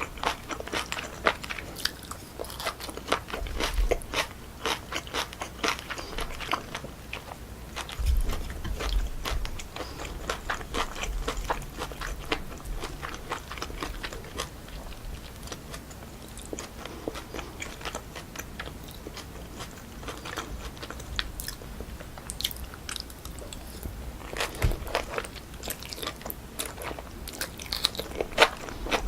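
Close-miked eating of cold pork trotters with jellyfish salad: crisp crunching bites and chewing in quick runs of small clicks. They thin out in the middle and pick up again near the end.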